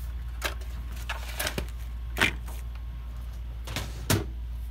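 Light clicks and knocks of a PS4 power supply circuit board being handled, lifted out of the console and set down on a workbench, with a sharper knock near the end, over a steady low hum.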